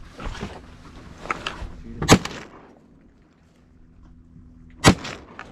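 Two shotgun blasts about three seconds apart, fired at passing ducks, with some smaller clicks and rustling around them.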